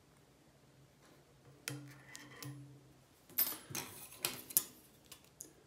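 Light metal clicks of a wire whip-finish tool as thread is wrapped and tied off at a jig head held in a vise. A few soft clicks come about two seconds in, then a quick run of sharper clicks a second or so later, with the loudest near the end of that run.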